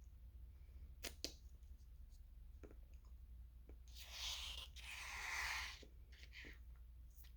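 Quiet ice cream eating sounds: two light clicks about a second in, like a spoon against the bowl, then two short rushing noises about four seconds in, over a low steady hum.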